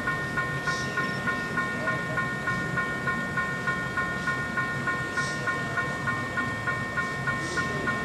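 Level-crossing warning bell ringing in a steady repeating pattern, a bright tone struck a little over twice a second, the signal that a train is approaching the crossing.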